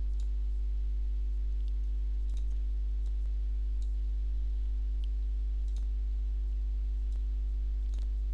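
Steady low electrical hum with a ladder of faint overtones, from the recording chain. Over it come scattered faint computer-mouse clicks, about a dozen at uneven spacing.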